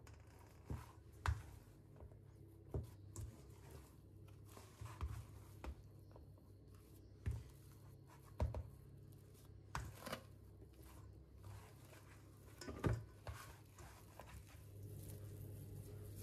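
Oiled hands stretching and folding sticky wholegrain bread dough in a stainless steel bowl: about ten soft, irregular slaps and knocks over a faint steady low hum.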